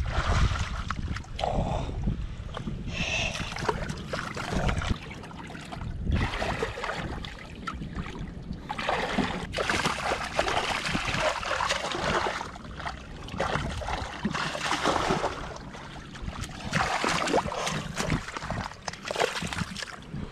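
Hands splashing and sloshing through shallow muddy water and weeds while groping for catfish in the mud, in irregular bursts.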